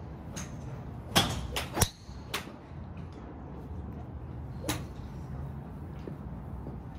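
A 9° TaylorMade R9 driver striking a golf ball off the mat: a sharp crack a little over a second in, followed by a second crack about half a second later and a few lighter clicks. A steady low hum runs underneath.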